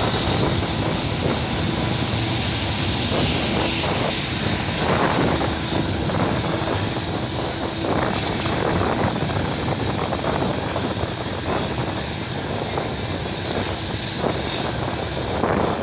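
Freight train cars rolling past: a steady heavy rumble of steel wheels on rail, broken by repeated clacks, with a thin high whine over it.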